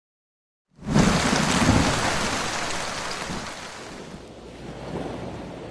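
Thunderstorm sound: a thunderclap starts suddenly about a second in over rain, and its low rumble fades over the next few seconds into steady rain.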